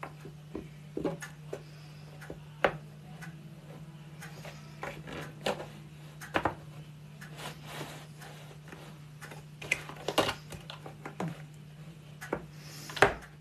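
Irregular light clicks and knocks from a plastic boilie rolling table being worked, with a steady low hum underneath.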